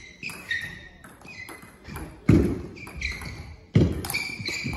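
Table tennis ball clicking off paddles and table during a rally, a string of sharp ticks. Two heavier thumps, about halfway through and near the end, are the loudest sounds.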